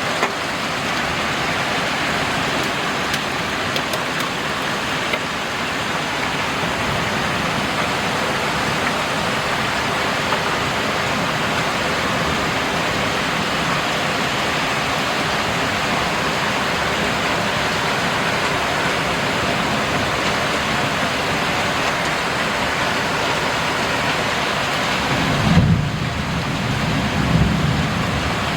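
Heavy rain mixed with hail pelting down in a steady roar. A low rumble of thunder comes in near the end and lasts a couple of seconds.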